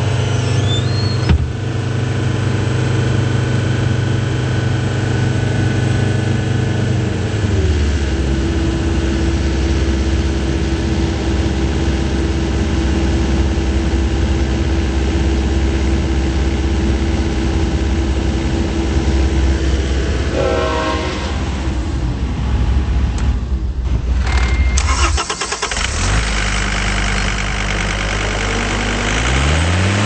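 John Deere 329D compact track loader's diesel engine running at a raised speed, then throttled down to a steady idle about a quarter of the way in. Near the end it revs back up with a rising pitch.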